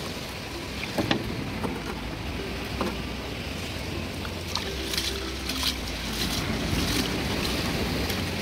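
Hands swishing and rubbing rice grains in a pot of water, with small splashes and clicks that come thicker in the second half, over steady wind noise and surf.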